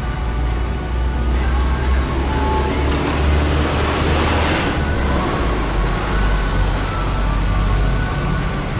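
Road traffic: vehicle engines running with a steady deep rumble, and an SUV passing close about four seconds in, its engine and tyre noise swelling and then fading.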